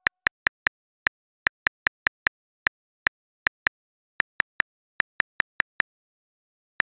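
Smartphone keyboard typing clicks: a string of short, sharp taps in uneven runs, a pause, then one last tap near the end.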